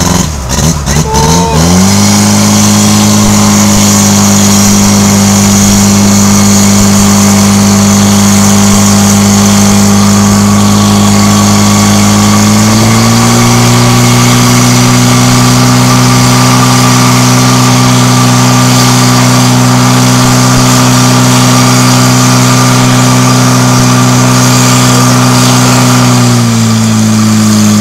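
Engine of a PPS 12 portable fire pump revving up and then running hard at a steady high speed as it pumps water from the tank out to the spraying nozzles. Its pitch steps up about thirteen seconds in and drops back just before the end.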